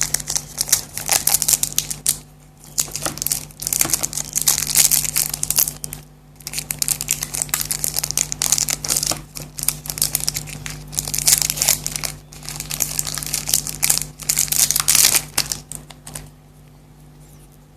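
A Kit Kat wrapper crinkling and rustling as it is torn open and unwrapped, in long runs with short pauses, stopping about 16 seconds in.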